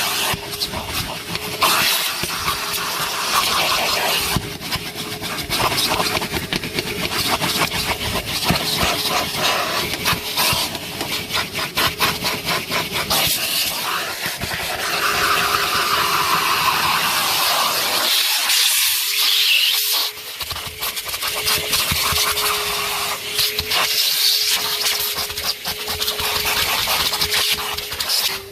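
Numatic NTD570 commercial vacuum cleaner running, a steady motor whine under the rush of suction. The nozzle crackles and rattles as it picks up debris from the car's interior. The suction note changes twice, near the end, as the nozzle is pressed against a surface and pulled off again.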